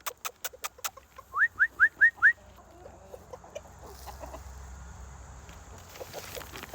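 Chickens clucking softly. In the first couple of seconds there is a quick run of sharp clicks, then four short rising whistles.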